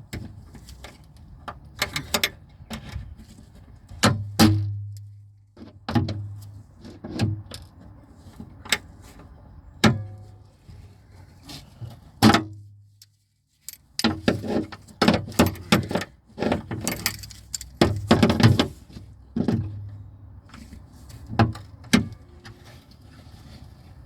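Hand tools clicking and clinking against metal parts of a car door lock mechanism while a bolt and screw are fastened: irregular sharp knocks and rattles over a low background hum, which drops out briefly about halfway through.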